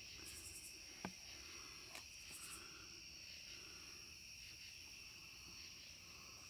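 Near silence: faint room tone with a steady high-pitched whine, and two faint clicks about one and two seconds in.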